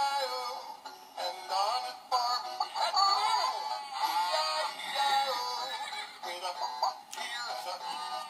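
Children's nursery-rhyme song with synthetic, computer-generated singing over a thin, tinny backing.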